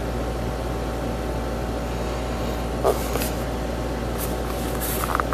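Steady low hum with a faint high tone, and a few light knocks and clicks, the sharpest about three seconds in and a small cluster near the end, from a USB power bank and its cable being handled on a wooden workbench.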